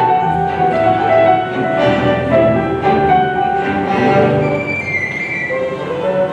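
Live symphony orchestra playing a Christmas carol arrangement, bowed strings to the fore over held low bass notes.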